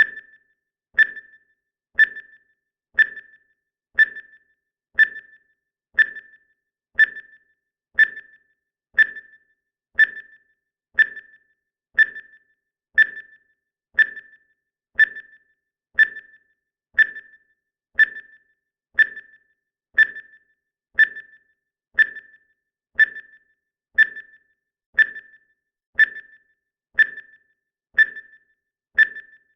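Countdown timer beeping once a second: a short, high electronic beep with a quick fade, repeated evenly.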